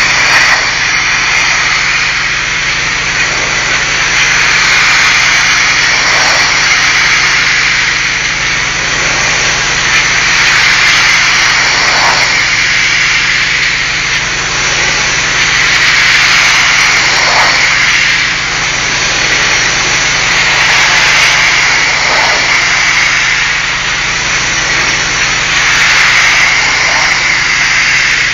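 Pressure washer spraying a brick wall: a steady, loud hiss of the water jet on the bricks, swelling and easing every few seconds as the wand sweeps back and forth, over a steady low hum.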